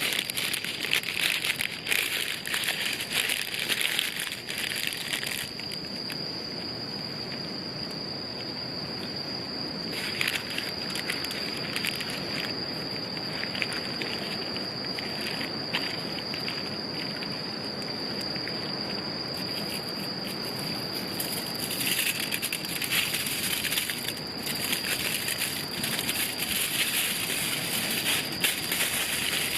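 Wood campfire crackling and popping in spells, over a steady high-pitched insect trill that never stops.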